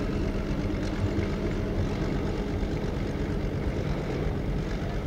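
Tractor engine running steadily with a constant low hum and rumble.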